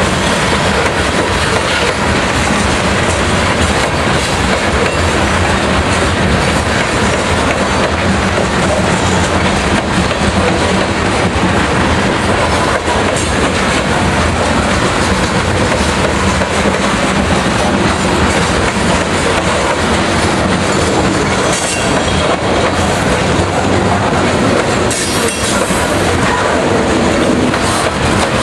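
Freight train of coal gondola cars rolling past close by: steady, loud noise of steel wheels on the rails.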